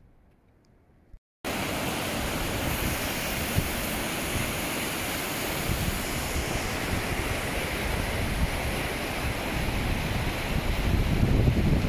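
Glacial meltwater stream rushing, a steady wash of water noise that starts abruptly after a short quiet stretch about a second and a half in, with wind on the microphone.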